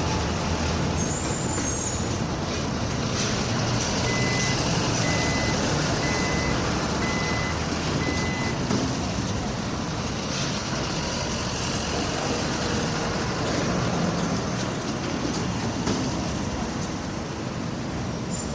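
Skyscraper construction site noise with a heavy vehicle engine running, and a backup alarm beeping five times, about a second apart, partway through.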